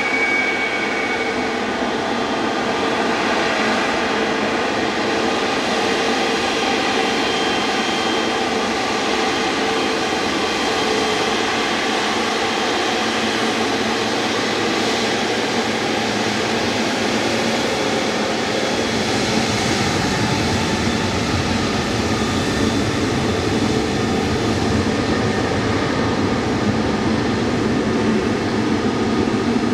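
Jet airliner's engines running steadily, a continuous wash of noise with faint whining tones.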